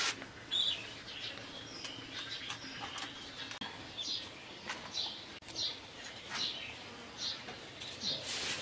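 Small birds chirping, short high calls about once a second, with a few sharp clicks and scrapes of a metal spatula against a clay pot and steel plate, the loudest right at the start.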